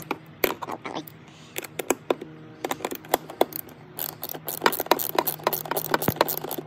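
Hand ratchet with an 8mm socket clicking in quick runs as it loosens a bolt on the cabin filter housing, with a denser run of clicks about two-thirds of the way through.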